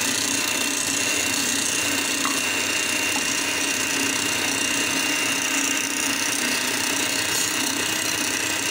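Electric hand mixer running at a steady speed, a constant motor whine as its beaters whip gelatin-sugar syrup in a steel bowl. The syrup is being beaten until it turns white.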